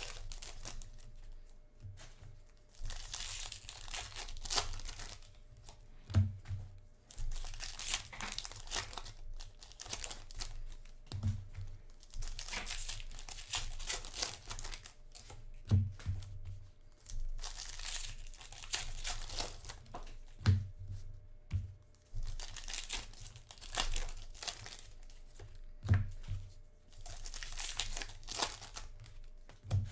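Foil wrappers of Topps Chrome trading-card packs crinkling and tearing as the packs are ripped open one after another, in bursts every few seconds. A dull thump comes about every five seconds.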